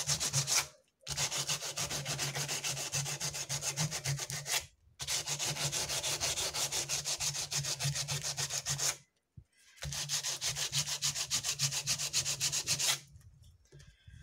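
Sandpaper rubbed by hand over dried, bead-studded cement in quick back-and-forth strokes, with a few short pauses, stopping about a second before the end. The sanding wears back the cement skin so the embedded beads begin to show.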